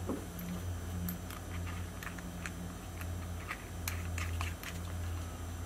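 Small, irregular clicks and ticks of metal bolts, nuts and bearings being handled and fitted into a 3D printed plastic block by hand, over a steady low hum.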